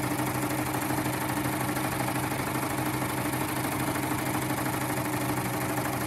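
BabyLock Triumph combination serger stitching steadily in cover-stitch mode, not running real fast, as fabric and bias binding feed through its double-fold binder attachment.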